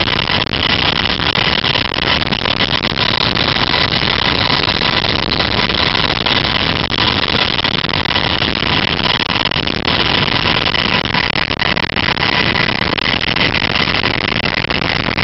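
Sikorsky UH-60 Black Hawk helicopter in flight, heard from aboard: its twin turbine engines and rotor run as a loud, steady noise with a steady high whine over it.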